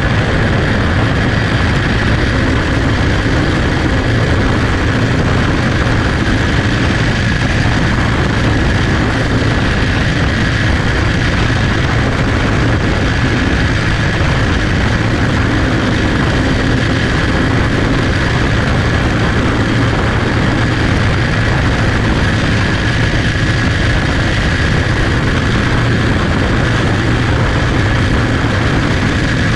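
Onboard sound of a champ kart's single-cylinder four-stroke clone engine running steadily at racing speed, loud and unbroken, with other karts' engines close by.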